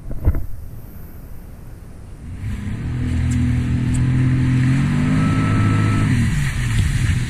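Sea-Doo Spark Trixx jet ski's three-cylinder Rotax engine picking up revs about two seconds in, running steadily at speed, then easing off near the end. Rushing water and spray underneath, with a thump just after the start as the hull hits the chop.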